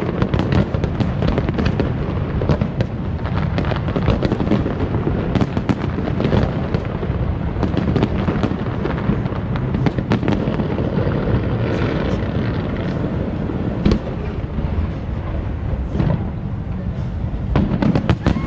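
Aerial fireworks shells bursting in a dense, continuous barrage of bangs, several a second, over a constant deep rumble.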